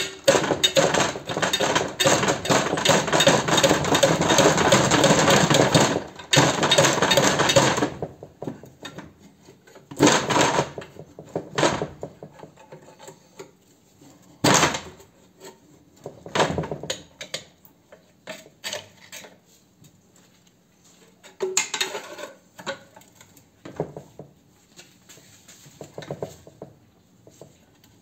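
Metal tools clattering and scraping against the steel motor housing of a scroll compressor being pried apart: a dense, rapid rattling for about the first eight seconds, then scattered knocks and clinks.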